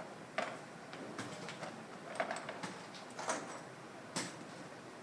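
Light irregular clicks and knocks of toy blocks and pegs being handled and dropped into a toy shopping basket, about a dozen in all.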